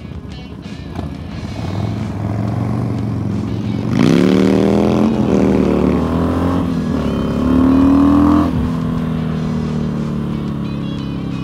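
Harley-Davidson V-twin motorcycle engine accelerating hard about four seconds in. The note climbs, drops back and climbs again through a couple of gear changes, then falls away after about eight seconds to a steady run.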